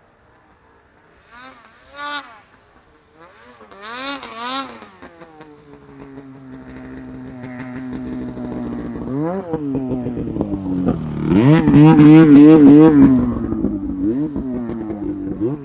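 Snowmobile engines revving. There are two short throttle blips about two and four seconds in. Then one engine grows louder as it comes closer, its pitch rising and falling quickly while it is loudest past the middle, and it eases off near the end.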